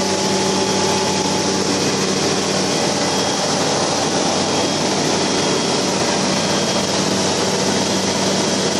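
Aeroprakt ultralight aircraft's engine and propeller droning steadily in flight, heard from inside the cabin over a steady hiss.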